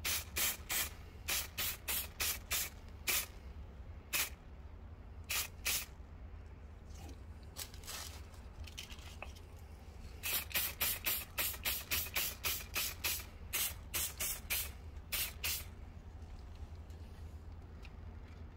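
Aerosol can of satin varnish spraying in many short, quick bursts, with a pause of about four seconds before a second, denser run of bursts.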